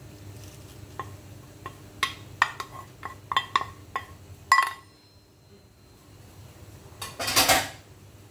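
A metal cooking pot and its lid being handled: about a dozen sharp clinks and knocks with a short metallic ring over the first four and a half seconds. About seven seconds in there is a brief loud burst of noise.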